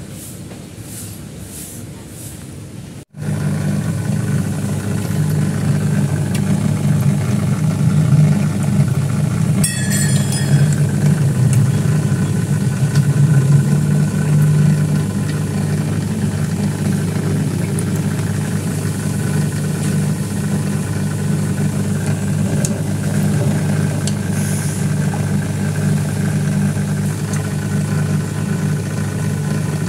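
Steady low electric hum of a submersible water pump in a fish pond, starting suddenly about three seconds in and holding loud and even.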